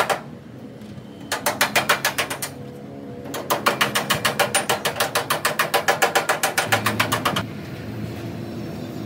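A rapid, even run of sharp knocks, about eight a second: a short burst, then a longer run of about four seconds that stops suddenly.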